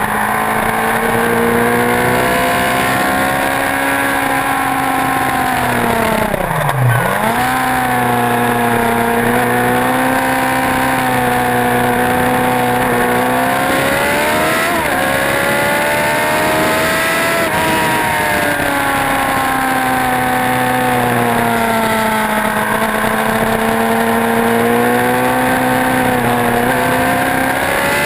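Motorcycle engine running hard around a racetrack, its pitch swelling and sagging with the throttle, with wind noise throughout. About seven seconds in the revs drop sharply and climb straight back, and around fifteen seconds in the note bends again.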